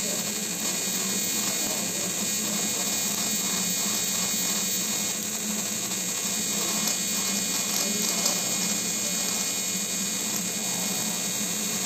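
Electro-spark deposition torch at work: the rotating spark gun spins its tungsten carbide electrode against the steel with a steady, even buzz as it lays down a hard carbide coating.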